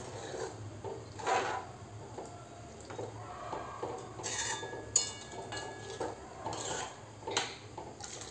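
Metal spoon stirring and scraping chickpea curry in a steel kadhai, with scattered clinks against the pan; one sharp metallic clink about five seconds in rings briefly.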